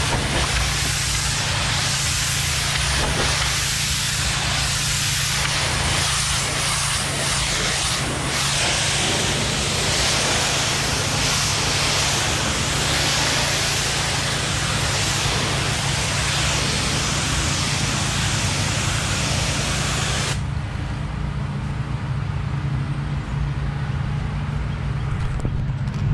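Pressure washer wand spraying water against a brick wall: a steady hiss of spray over the hum of the pressure washer's engine. About twenty seconds in the spray stops and the engine keeps running alone.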